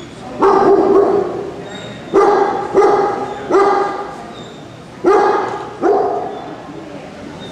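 A dog barking: six loud barks, each trailing off in the echo of a large indoor hall.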